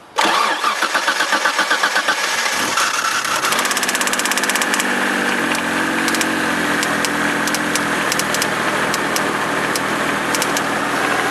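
Starter cranking the 1991 Dodge Stealth's 3-litre twin-turbo Mitsubishi V6 for about two and a half seconds until it catches, then the engine running with a severe, rapid knocking. The knock began right after the engine was fogged with storage oil through the intake; the owner suspects a broken lifter or roller rocker, piston knock or a bent rod, and places it inside the cylinder head.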